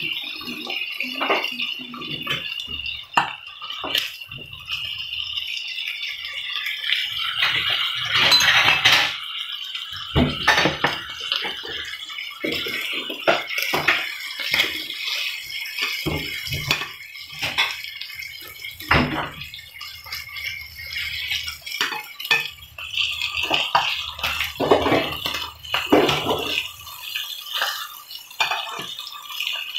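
Striploin steak frying in hot oil in a pan with a steady sizzle, while a metal fork clicks and scrapes against the pan as the pieces are turned.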